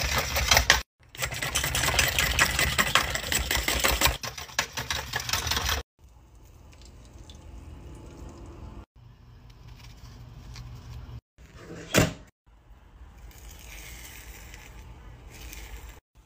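Metal whisk beating eggs fast in a steel bowl, a rapid clatter of metal on metal for about the first six seconds. Then quieter sounds of eggs poured into a frying pan and cooking, with one sharp knock about twelve seconds in.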